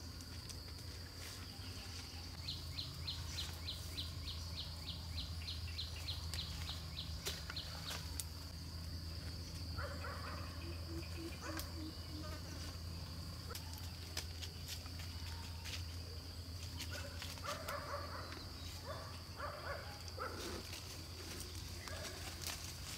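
Steady high-pitched insect drone, with a rapid run of chirps, about four a second, for five seconds early on. Scattered sharp clicks and knocks of handling or work sound over it.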